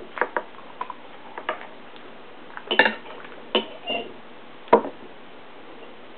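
Metal knife and fork clinking and scraping against a ceramic bowl: a string of short, irregular clicks, with the sharpest knocks about three and five seconds in.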